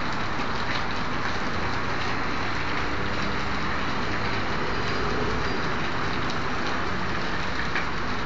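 Large fire burning with a steady rushing noise and a few scattered crackles.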